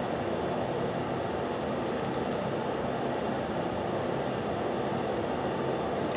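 Steady rushing background noise at an even level, with a short run of faint metallic ticks about two seconds in from a torque wrench ratcheting on the clutch cover bolts.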